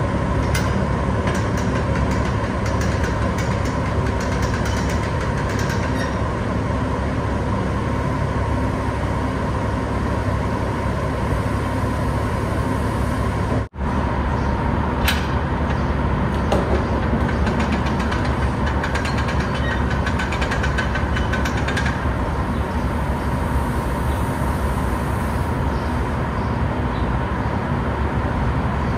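Idling semi truck and the steady noise of grain unloading from a hopper-bottom trailer into a pit, with a constant hum. Runs of clicks and rattles come from the hopper gate as it is cranked open.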